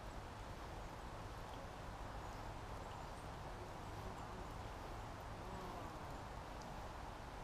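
Quiet, steady outdoor background noise with no distinct single sound standing out.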